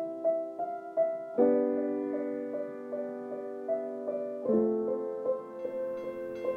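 Piano music: a quick repeating pattern of notes over held chords, which change about a second and a half in and again at about four and a half seconds.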